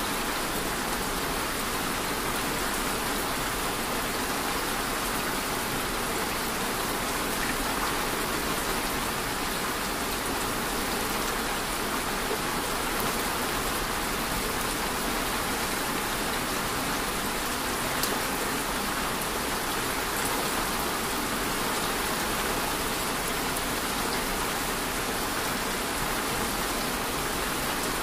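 Steady rain falling, an even, unbroken hiss of many drops.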